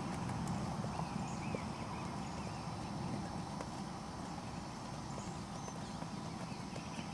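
Hoofbeats of a ridden horse moving over grass.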